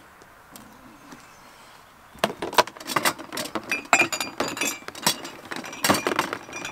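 A storage box packed with drinks, coffee and tea things being lifted out, its contents clinking and knocking together. It starts about two seconds in, with a dense run of sharp clinks and a few short glassy rings.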